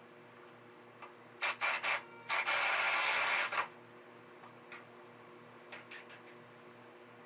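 A few short scraping strokes, then one longer scrape lasting about a second, followed by a few light clicks, as shelving is worked loose; a steady low hum runs underneath.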